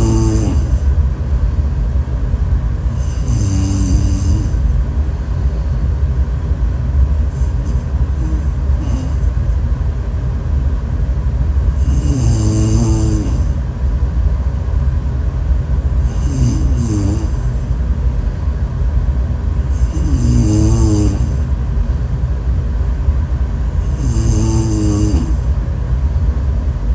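A person snoring in slow, regular breaths, one snore about every four seconds. Each snore is a wavering buzz with a high hiss on top, over a steady low rumble.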